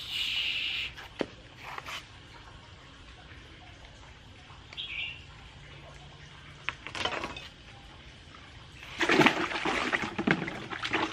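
Water splashing and sloshing as hands work in a pond at its edge, loudest from about nine seconds in. A bird gives a short chirp about halfway through.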